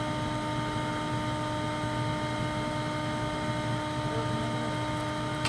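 A 6.5-horsepower, 16-gallon shop vac blowing air into a pit forge, its motor running with a steady whine over rushing air. A single sharp knock right at the end.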